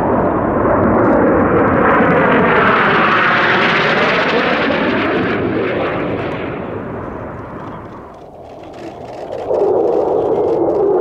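F-16 fighter jet's single engine passing low and close: the noise swells with a sweeping, phasing tone over the first few seconds, then fades away by about eight seconds in. About nine and a half seconds in, the noise of another jet cuts in abruptly.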